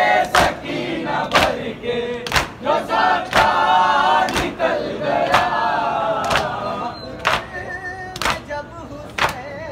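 Crowd of men chanting a Muharram nauha in unison, kept in time by matam: hands slapping on chests together, sharp and even, about once a second. The chanting thins out near the end while the chest slaps keep the beat.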